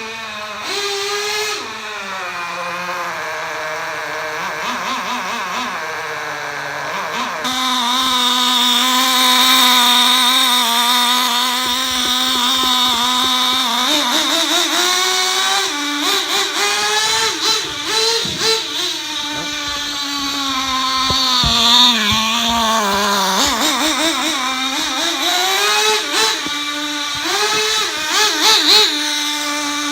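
Small nitro glow engine of a 1/16 HSP Thunderfire RC truck running and being revved, its pitch rising and falling again and again as the truck drives. The pitch holds steady for several seconds in the middle before it climbs and dips again.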